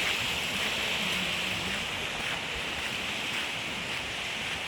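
Steady outdoor rushing hiss, strongest in a high band, running evenly without breaks.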